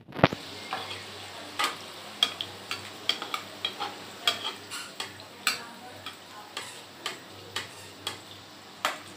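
Gulab jamun dough balls deep-frying in hot ghee in a metal kadhai: a steady sizzle with frequent sharp pops and clicks, as a slotted spoon stirs them in the oil. The loudest click comes just after the start.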